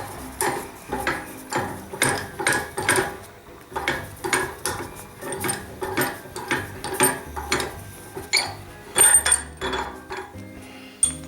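Background music: a tango with a steady, clipped beat of about two strokes a second over a moving bass line.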